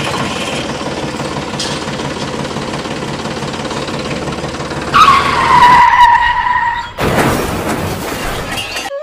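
Small electric motor and gears of a homemade miniature tractor running with a steady rattle. About five seconds in, a loud whine drops in pitch, followed by about two seconds of harsh rushing noise near the end.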